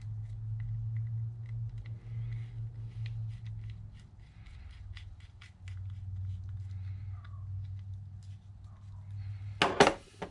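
Small screwdriver ticking and scraping on the tiny side-plate screws of an Abu Garcia 6500 C3 baitcasting reel as they are driven in, over a low steady hum that drops out for a second or two near the middle. Near the end comes a loud short clatter as a tool is laid down on the plastic work mat.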